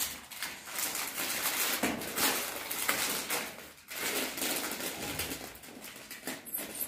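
Plastic bags and snack packets rustling and crinkling as they are handled, an irregular crackle that comes and goes.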